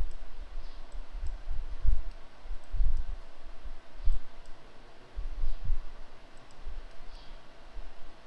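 Computer mouse clicking at irregular intervals as joints are selected one by one in a 3D model, along with dull low thumps.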